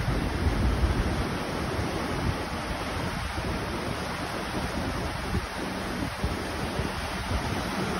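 Surf breaking and washing up onto a sandy beach, with wind buffeting the microphone, the low rumble of the wind heaviest in the first second or so.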